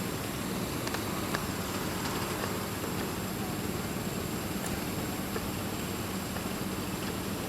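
Steady background noise: a low hum under an even hiss, with a thin high tone and a few faint ticks.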